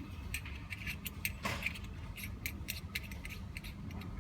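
A string of light, irregular clicks and taps from small hard parts being handled, over a steady low hum.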